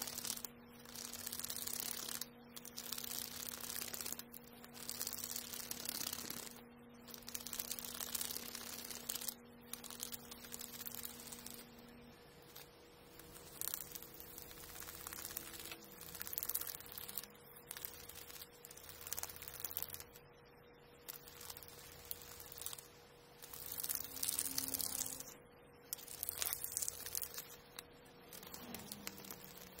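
Sandpaper rubbed by hand over a carved Japanese red oak (akagashi) shift knob: a scratchy hiss in repeated strokes, each a second or two long with brief pauses between.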